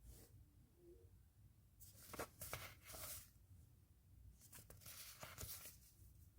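Faint rustling and scratching of items being handled, in two short spells, about two seconds in and again near the end, with quiet room tone between.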